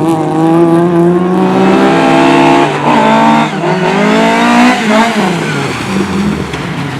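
Racing engines at full throttle on a cinder track, their pitch climbing and holding, then dropping sharply about a third of the way in and again near the end as they come off the throttle, with another engine passing after.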